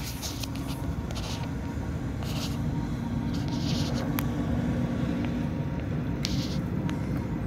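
Several short hissing squirts of bubble leak-detection solution sprayed onto a nitrogen-pressurised condenser coil header, over a steady low rumble of nearby machinery. A single sharp tick about four seconds in.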